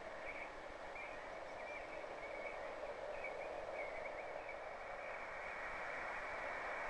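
Outdoor lakeside ambience: a steady background hiss with faint, irregular chirps repeating throughout, slowly growing a little louder.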